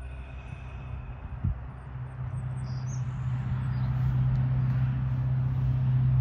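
A steady low engine hum that holds one pitch and grows louder from about two seconds in. A few faint high chirps sound near the middle.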